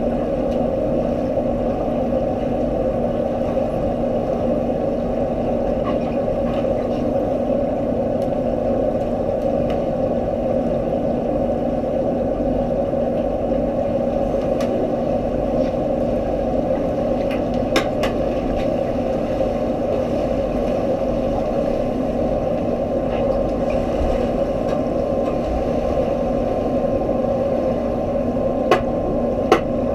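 Steady underwater hum of swimming-pool machinery such as the circulation pumps, carried through the water to a submerged camera, with a few sharp clicks about eighteen seconds in and again near the end.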